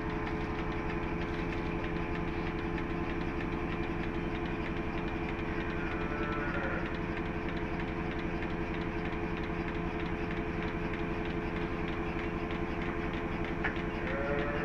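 A motor-driven machine running steadily with a fast, even pulse. Two short animal calls sound over it, one about six seconds in and one near the end.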